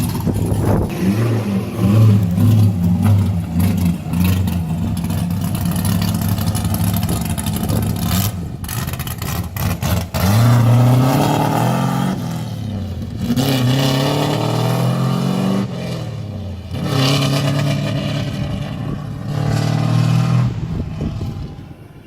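LS V8 engine in a Nissan S14 240SX drift car running loud, revving up in pitch and breaking off several times in the second half.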